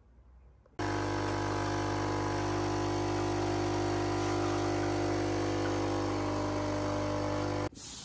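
Capsule coffee machine's pump buzzing steadily as it brews into the cup. It starts abruptly about a second in and cuts off near the end.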